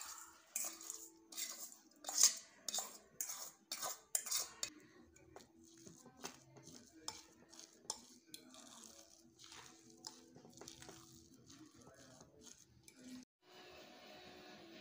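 Metal spoon clinking and scraping against steel and glass bowls: a quick run of sharp clinks as chopped green chillies and spices are scraped into mashed potatoes, then softer stirring and mashing of the potato filling for aloo paratha.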